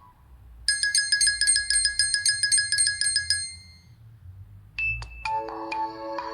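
Two of the Nokia 3's stock phone tones. The first is a rapid string of high, bell-like electronic notes, about five a second, lasting under three seconds. About a second after it ends, a second tone starts with a few sharp plucked notes, then settles into lower held notes.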